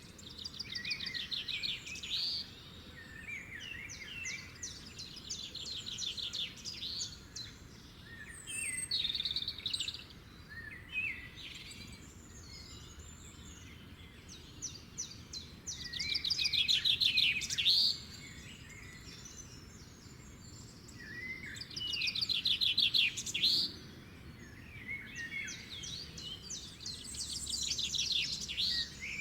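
Songbirds singing: repeated phrases of rapid trilled notes with chirps between them, the loudest trills about halfway through and again a few seconds later, over a faint steady background.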